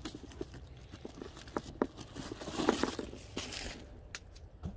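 A handbag and its paper packaging being handled: rustling and crinkling, loudest through the middle, with a few light clicks.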